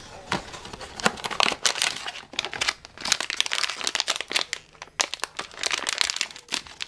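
Foil pouch crinkling in dense, irregular crackles as it is handled by hand and torn open.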